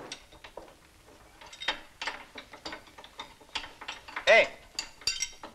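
Hand tools clicking and clinking against metal under a car, with a ratchet-like working rhythm of irregular sharp clicks and a louder ringing metal clank about four seconds in.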